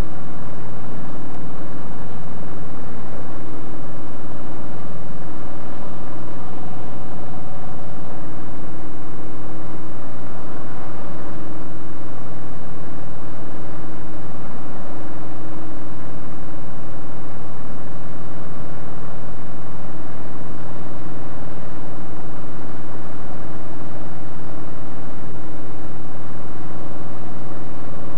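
Piston engine and propeller of a light high-wing aircraft running steadily in cruise, heard from inside the cabin.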